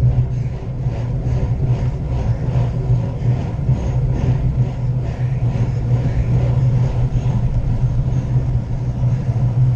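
Steady wind noise on a bicycle-mounted camera's microphone, with tyre rumble on asphalt, as a road bike is ridden at racing speed.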